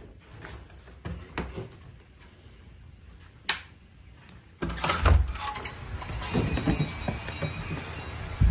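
A wooden door's metal lever-handle latch clicks once, then the door is opened and a sudden, louder stretch of knocking and rustling follows.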